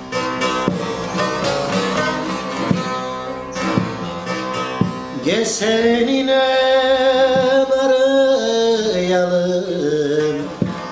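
A divan sazı, a large long-necked bağlama with a carved mulberry bowl, played with quick picking. About five seconds in, a man's voice joins, singing in Turkish folk style: one long held note, then a winding, ornamented line.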